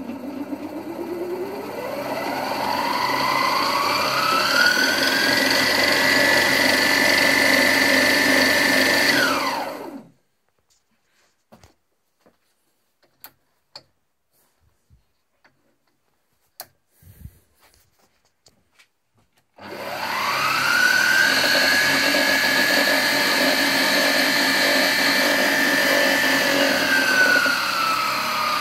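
Optimum benchtop milling-drilling machine's variable-speed spindle motor and chuck spinning up with a whine that rises in pitch over several seconds, holding steady at high speed, then winding down to a stop. After about ten seconds of near quiet with a few small clicks, it starts again, spins up quickly to the same speed, and near the end drops to a lower speed.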